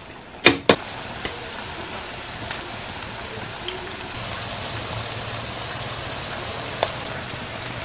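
Sliced green saba bananas deep-frying in very hot oil in a wok: a steady sizzle with faint crackles. About half a second in, two sharp knocks of the metal skimmer against the wok.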